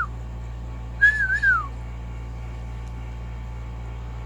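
A person whistling: the end of a held note dips down at the start, then a short wavering whistle about a second in slides downward. A steady low hum runs underneath.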